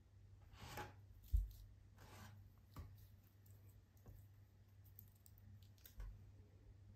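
Quiet handling sounds of arms moving over a wooden table: soft rustling, a dull low thump about one and a half seconds in, and a softer thump about six seconds in as elbows come to rest on the tabletop.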